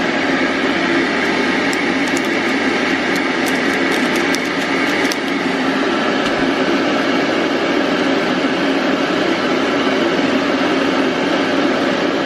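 Electric kettle heating water toward the boil: a steady, loud rushing noise, with a few faint ticks a few seconds in.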